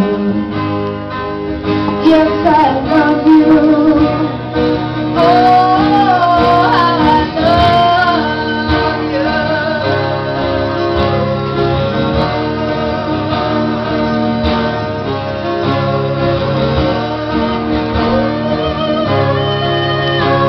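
A woman singing live to her own strummed twelve-string acoustic guitar. The guitar plays alone at first and the voice comes in about two seconds in.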